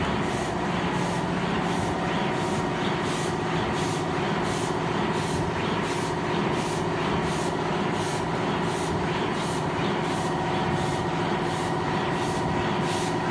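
Automatic platen die-cutting machine running: a steady mechanical hum with a regular clack about one and a half times a second, one for each cycle of the platen as a sheet of board is cut.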